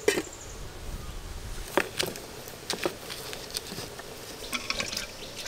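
A metal lid set down on a wok-like karai with one sharp clank, followed by scattered sharp clicks and crackles from a wood fire in a clay stove as a stick of firewood is pushed in.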